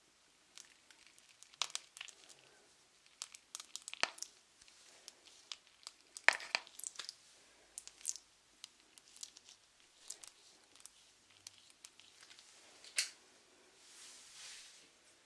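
Close-miked crinkling and crackling with many irregular sharp clicks, from skin-care products being handled near the microphone. The loudest crackles come around four and six seconds in and again near the end.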